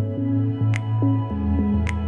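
Background music: ambient electronic track with sustained synth notes that change every half second or so and a sharp tick about once a second.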